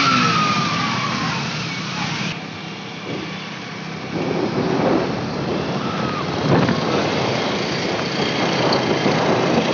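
Motorcycle engines running at low speed with road noise. The sound changes abruptly about two seconds in.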